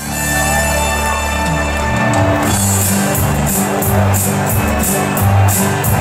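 Live band music over a concert PA: held low bass notes at first, then drums with a steady cymbal beat coming in about two and a half seconds in, with no vocals yet.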